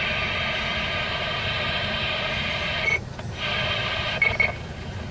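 CB radio speaker giving a steady static hiss from an open channel. About three seconds in and again near the end, a short high beep is heard, each followed by the hiss dropping away as the transmitting station unkeys.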